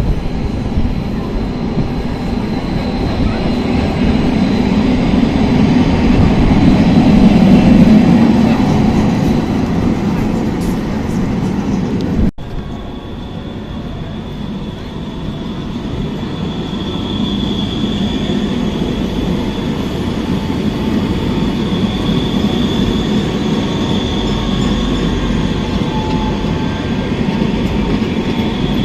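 Electric city trams running on street track, their rumble building to its loudest about eight seconds in. The sound breaks off suddenly about twelve seconds in, then a second tram approaches and passes close with a high steady whine over the rumble.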